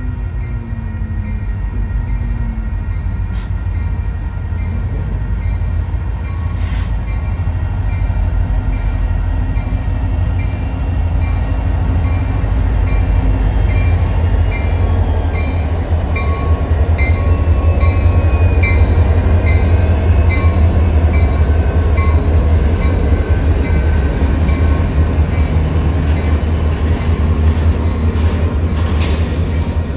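Diesel freight locomotives rumbling as they approach and pass close by, growing loudest midway through. A grade-crossing bell dings about twice a second through the middle, and a horn note tails off in the first couple of seconds.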